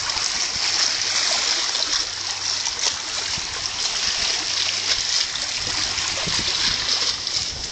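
Water lapping and splashing steadily, a continuous hiss of small splashes.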